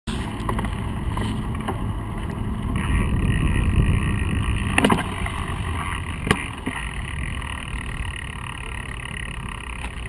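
Steady low rumble of road and vehicle noise, with a low engine-like hum in the first half, and sharp knocks about five and six seconds in.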